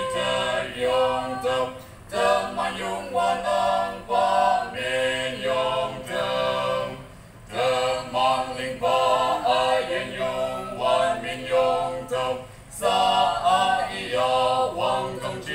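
A mixed vocal quartet of two men and two women singing together into microphones, in long phrases with brief breaks between them.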